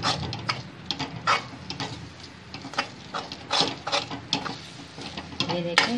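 Spoon scraping and knocking against a kadhai in irregular strokes, several a second, as a semolina and gram-flour batter is stirred while it thickens into a dough.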